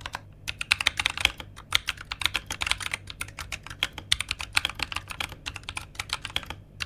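Typing on a Rexus Heroic KX3 65% mechanical keyboard with brown tactile switches: a fast, irregular stream of key clacks, with a short pause about half a second in.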